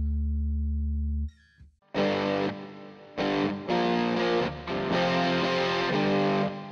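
Rock-and-roll radio jingle music. A held chord rings and stops about a second in, then after a short gap a distorted electric guitar plays a riff of chord stabs.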